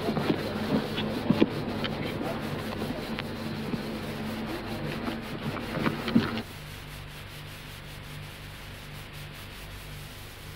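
Rustling and scuffing of soldiers' footsteps through forest grass and undergrowth, with a few knocks. It stops about six seconds in, leaving a low steady hum.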